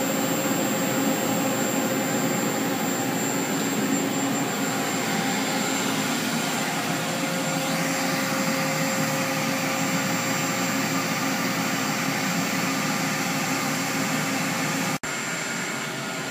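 Steady whirring hum of running machinery, pumps and cooling fans, with a faint held tone over it. It breaks off for an instant near the end and carries on a little quieter.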